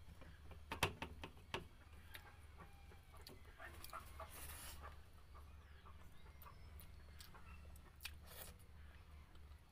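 Quiet eating sounds: a few sharp clicks and mouth smacks about a second in, a soft rustle around four seconds and more clicks near the end, over a low steady hum.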